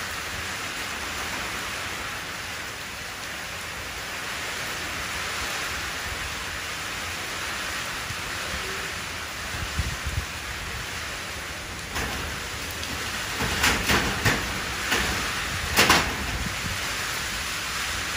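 Rain falling steadily into a shallow puddle: an even splashing hiss. About two-thirds of the way in, a handful of sharper, louder taps stand out over it for a few seconds.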